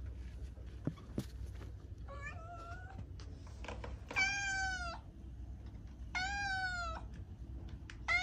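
A cat meowing repeatedly, about one call every two seconds, each a short meow that rises and falls in pitch, the first one fainter. Two sharp clicks come about a second in, over a steady low hum.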